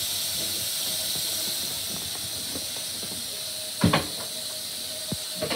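Dog chewing a large ham bone over a steady hiss, with a few sharp crunches: the loudest about four seconds in, then two smaller ones near the end.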